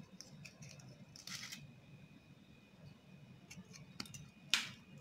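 Faint clicks and rustles of spices being handled and sprinkled into a pot of chicken and onions, with one louder brief swish near the end.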